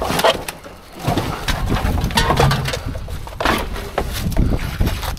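Scrap and debris being rummaged through by hand: irregular knocks, scrapes and rustling as pieces are shifted to reach what lies underneath.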